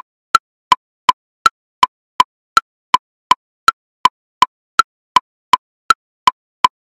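Electronic metronome at 54 beats per minute subdividing each beat into triplets: a higher woodblock click on the beat followed by two lower woodblock clicks, about three clicks a second in an even, unbroken pulse.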